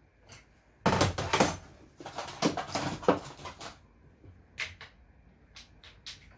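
Metal parts and hand tools clattering and scraping while a transformer is worked loose from an electronics chassis: a dense run of sharp clicks and knocks for about three seconds, then a few single clicks.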